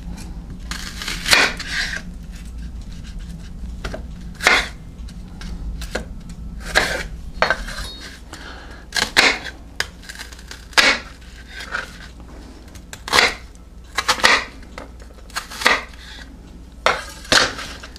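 Chef's knife chopping a small onion on a wooden cutting board: about fifteen sharp knocks of the blade on the board at uneven intervals, over a low steady hum.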